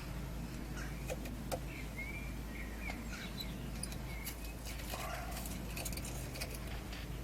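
Faint, short high chirps and scattered light clicks over a steady low hum.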